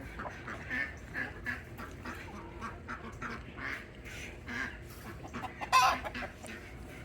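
Farm animals calling: a run of short, repeated calls, with one louder, harsher call near the end.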